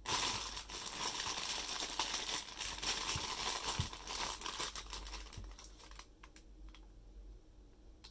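Toy packaging crinkling as it is handled and unwrapped, loud and continuous for about six seconds, then easing off into a few light clicks.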